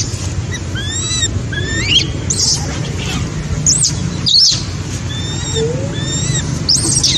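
A string of short, high-pitched calls, each rising and then falling in pitch, about one or two a second, over a steady low hum.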